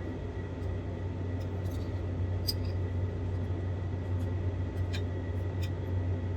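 A few light clicks of cutlery on a plate while eating, over a steady low hum.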